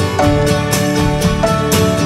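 Background music with plucked guitar and a quick, steady beat, in a country or bluegrass style.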